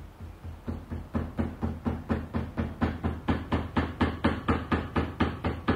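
Rapid, evenly spaced knocking, about four knocks a second, growing steadily louder and stopping near the end.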